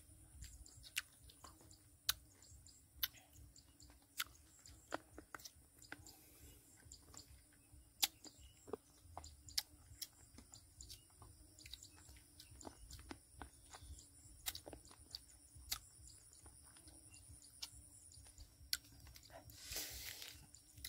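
A person chewing crunchy sour cà na fruit close to the microphone, with sharp crunching clicks about once a second.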